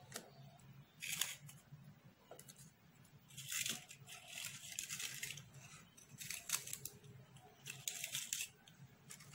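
Paper candy cups and a paperboard box rustling and scraping as chocolates are set into the box, in short bursts every second or two, over a faint steady low hum.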